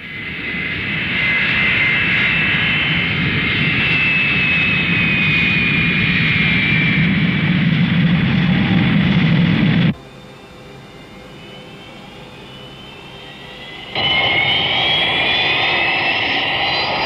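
Jet airliner engines running at high power with a high whine, as a plane takes off. About ten seconds in the sound cuts abruptly to a quieter hum, then comes back loud near the end with a rising whine.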